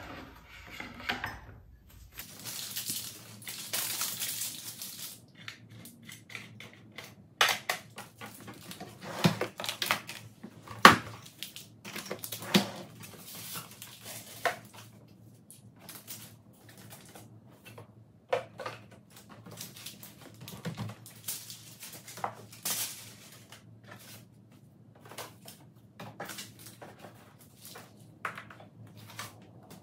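Small items being handled on a desk: papers and plastic pieces rustling and a scattered run of light knocks and clicks, with a short stretch of rustling a few seconds in and the sharpest knock about eleven seconds in.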